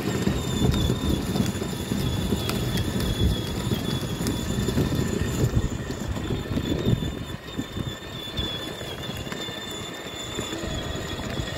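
12V battery-powered ride-on toy car driving over paving stones: its hard plastic wheels rumble and rattle on the pavers, with a thin steady high whine from the electric drive. The rumble eases about two-thirds of the way through.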